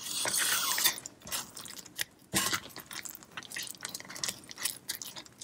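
Light kitchen handling noises: scattered small clicks and taps, with a brief hiss in the first second and one sharper click a little past two seconds in.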